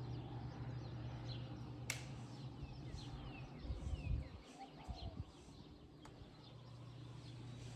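Small birds chirping in quick, short calls again and again over a steady low hum, with a few louder low thumps a little past the middle and two sharp clicks.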